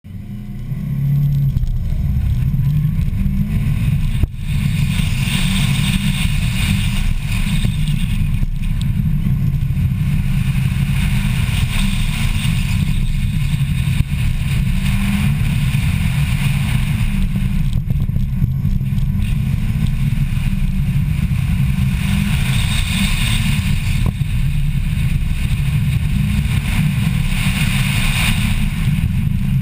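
Mitsubishi Lancer Evolution's turbocharged four-cylinder engine pulling hard through an autocross run. It builds up quickly from the launch at the start and keeps running loud, with its sound swelling and easing through the corners. There is a single sharp knock about four seconds in.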